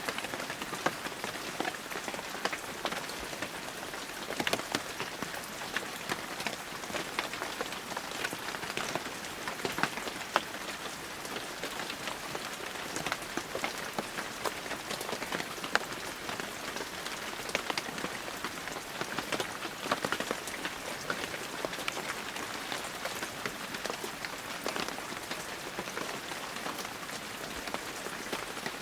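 Heavy rain falling steadily, with a dense patter of individual drops striking close by.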